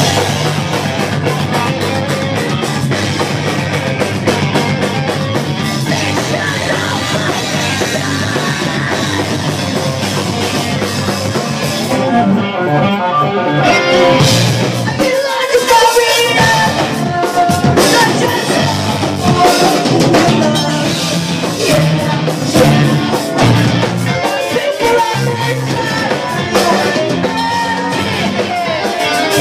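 Live rock band in full swing: distorted electric guitars, bass and a drum kit played hard, loud and close to the microphone.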